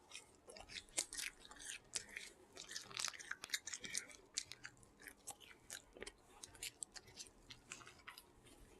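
A person chewing a mouthful of Burger King chicken sandwich close to the microphone: soft, irregular wet smacking and mouth clicks, several a second.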